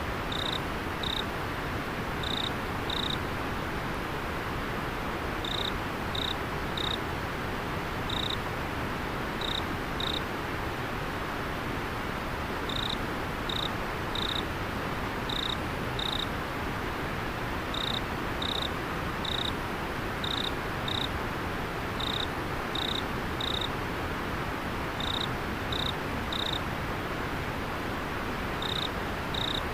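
Steady rushing of river water, with a cricket giving short, high chirps in twos and threes, broken by pauses of a second or two.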